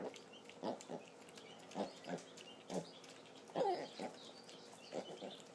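Mini pigs grunting as they eat pellets from a shared bowl: short separate grunts about once a second, one near the middle with a wavering pitch.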